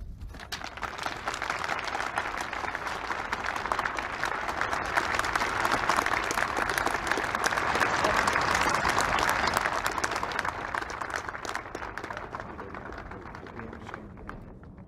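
A crowd applauding, building over the first few seconds and slowly fading away toward the end.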